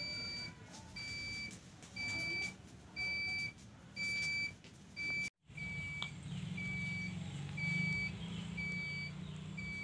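Electronic beeping: one high steady tone in half-second beeps, about one a second. A low hum joins it after a brief dropout about halfway through.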